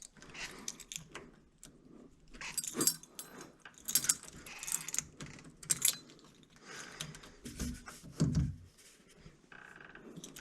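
Metal keys jangling and small metal clicks and rattles as a door lock is handled during rekeying, in irregular clusters, with a few dull knocks about three quarters of the way through.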